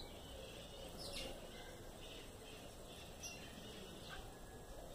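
Faint, short bird chirps, a few scattered through, over a steady low background hiss.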